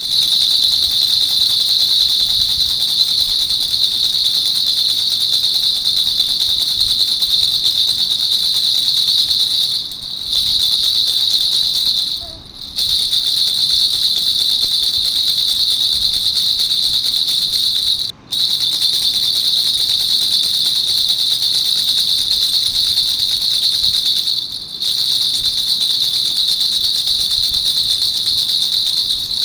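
Baby rattle (jhunjhuna) shaken rapidly and continuously, a dense high jingling rattle that breaks off briefly four times.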